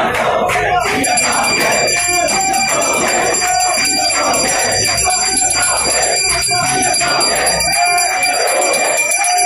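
Temple bell ringing steadily from about a second in, over a crowd of voices.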